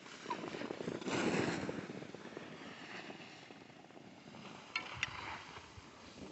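Skis sliding and scraping over packed snow, a rough noise that swells about a second in, with two sharp clicks about five seconds in.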